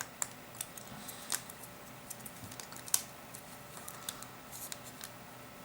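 Small, sharp plastic clicks and taps, irregular and a dozen or so in number, from handling the opened smartphone's parts and pressing its LCD flex connector into place; one louder click about three seconds in.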